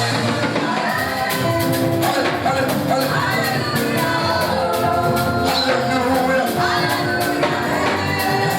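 Live gospel music: singing voices over a band with a steady beat and percussion.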